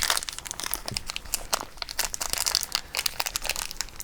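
Small plastic wrapper crinkling and crackling in irregular bursts as hands handle it and open it to get at a Shopkins toy.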